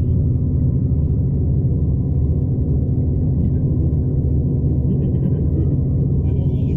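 Steady low rumble of a V/Line passenger train running along the track, heard from inside the carriage.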